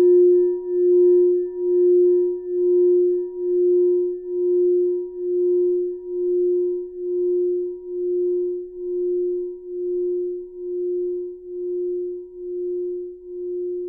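Tibetan singing bowl ringing out in one long, steady tone that wobbles about once a second and slowly fades.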